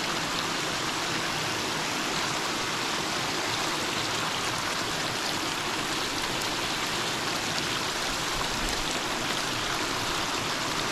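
Water rushing steadily in an irrigation channel that is running high after heavy rain.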